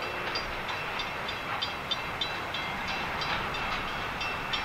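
Freight train of covered hopper cars rolling away along the track: a steady rumbling noise with short high-pitched squeaks repeating a few times a second.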